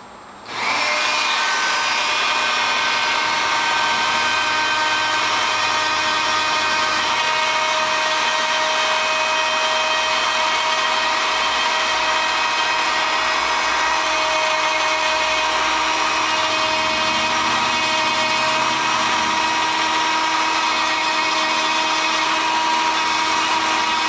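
Dremel rotary tool starting up about half a second in and then running steadily, its Cratex rubberized abrasive wheel sanding down the solder seam inside a metal ring. The motor gives a steady whine of several tones.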